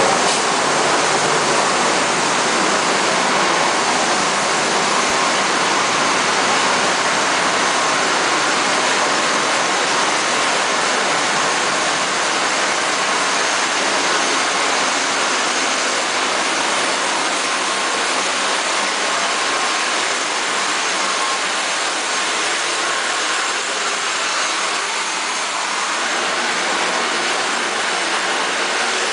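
Steady, loud rushing whine of aircraft turbine engines running on an airport ramp, with a thin steady tone in it that fades about two-thirds of the way through.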